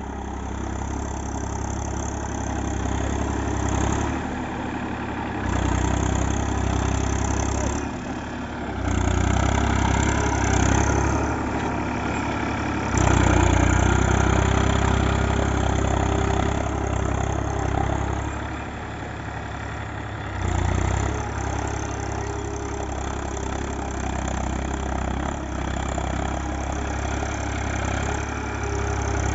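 Massey Ferguson 1035 DI tractor's three-cylinder diesel engine running as the tractor drives over heaped paddy straw to thresh it. It swells and fades as the tractor comes near and moves off, and is loudest about halfway through.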